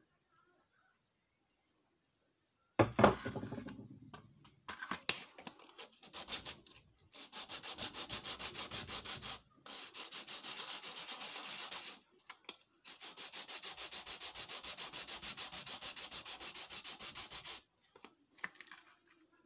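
A loud knock about three seconds in, then a small piece of wood rubbed by hand back and forth on a sheet of sandpaper. The sanding strokes come in steady runs of about five a second, with two short breaks.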